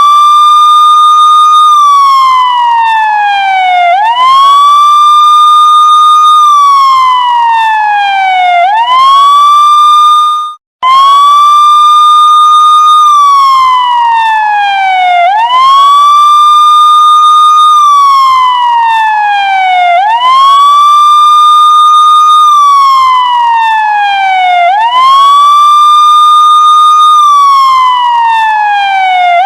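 Police siren sounding a wail: each cycle sweeps quickly up, holds its high note for a moment, then glides slowly back down, repeating about every four and a half seconds. It cuts out for an instant about ten seconds in and picks straight up again.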